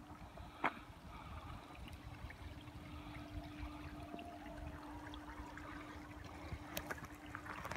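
Faint trickle of a shallow creek running over rocks, with a faint steady hum and a single click about half a second in.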